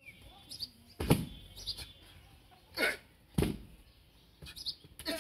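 Wrestlers' bodies slamming onto a tarp laid over bare ground: a few heavy thuds, the loudest about a second in and another about three and a half seconds in.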